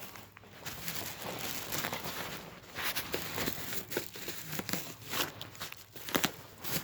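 Plastic bubble wrap being handled, crinkling and rustling with scattered sharp crackles.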